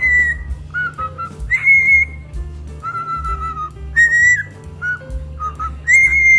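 A parrot whistling a tune: a run of clear, high whistled notes, some held for about a second and some short and slurred, over a low music bed.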